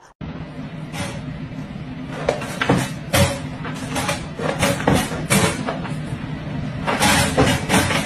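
Repeated sharp knocks and rattles of a plastic pet crate and its wire door as a dog squeezes its way out of it, over a steady low hum. The knocking comes thickest near the end.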